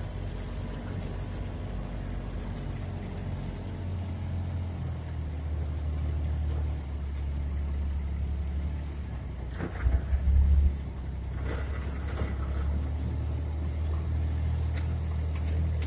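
Farm utility vehicle's engine running steadily at low speed, heard from inside the cab. A few loud knocks and rattles come about ten seconds in, as the vehicle jolts over rough ground.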